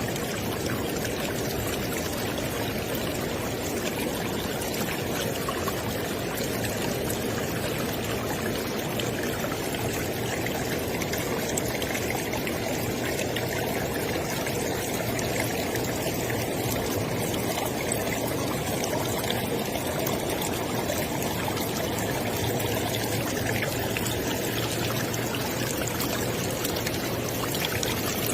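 River water flowing steadily over rocks, an even rushing and babbling with no breaks.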